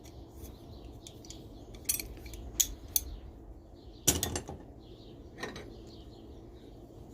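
Steel hand tools clinking and knocking together as they are picked up and set down: a few sharp clicks, the loudest knock about four seconds in.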